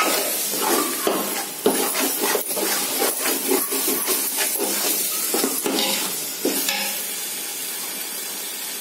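Perforated metal ladle scraping and knocking against a metal pot while stirring a thick masala that is frying, over a steady sizzle. The stirring stops about seven seconds in, leaving only the sizzle.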